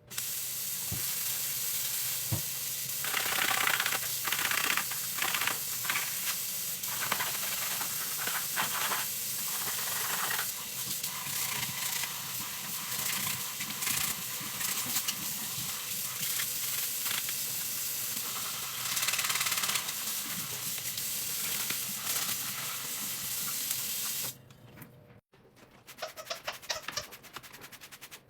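A steady hissing spray of water during dishwasher cleaning, cutting off suddenly about 24 seconds in. Light clicks and scrapes follow.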